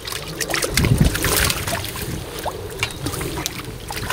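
A hooked crucian carp thrashing at the water's surface, splashing repeatedly as it is pulled in on the line, loudest about a second in.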